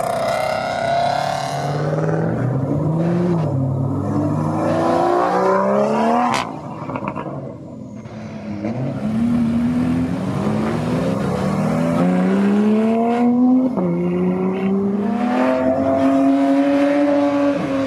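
Supercar engine accelerating hard, its pitch climbing and dropping back sharply at each upshift, several times over.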